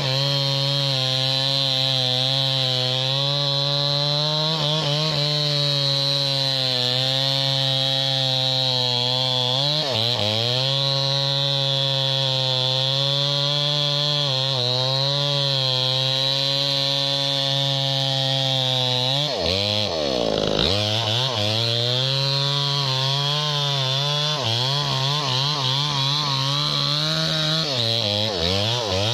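Two-stroke chainsaw with a dull chain cutting into a thick, dense, hard tree trunk, the engine held under load at a steady pitch. About ten seconds in, and again around twenty seconds, the revs drop briefly and recover, and near the end the pitch wavers.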